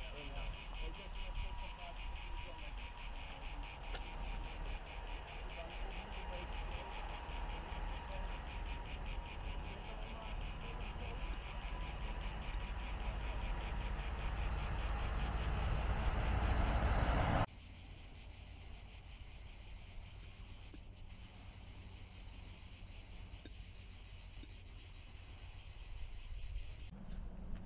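Cicadas chirring: a dense, rapidly pulsing high buzz over a low rumble. About 17 seconds in it drops abruptly to a much fainter insect drone.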